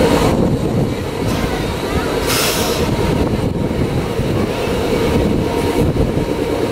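Gerstlauer dancing-pavilion ride running, with a steady heavy mechanical rumble of its machinery as it turns. A short rush of hiss swells up about two and a half seconds in.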